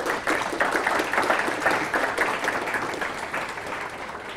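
Audience applauding, a dense patter of many hands clapping that is strongest at first and gradually fades toward the end.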